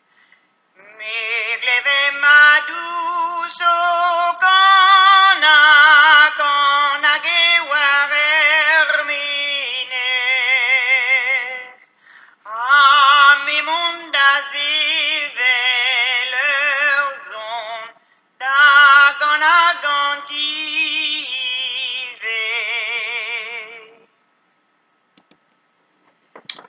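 A woman singing a slow traditional folk song unaccompanied, her voice wavering with vibrato, played back from a recording. The song goes in long phrases with brief breaths between them and stops a couple of seconds before the end.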